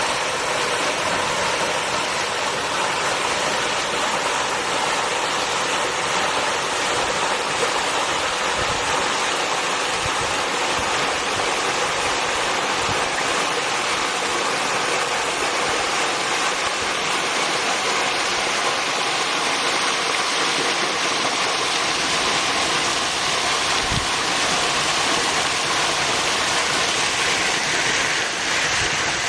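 Bulbuci waterfall: a steady rush of falling water.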